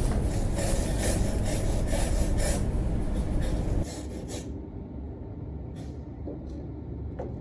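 Steel wire brush scrubbing a metal workpiece in quick back-and-forth strokes, about three a second, used to clean the weld area. The scrubbing stops about four seconds in, leaving a few faint ticks.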